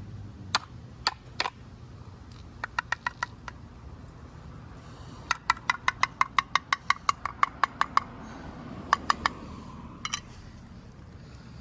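A cat eating its food: runs of sharp clicks and clinks, with a steady run of about five a second through the middle and a few scattered ones before and after.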